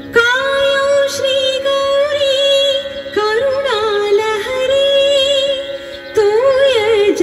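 A woman singing a slow, ornamented Indian classical-style melody in three long phrases, her held notes wavering and sliding, over a faint steady drone, played from the show's soundtrack.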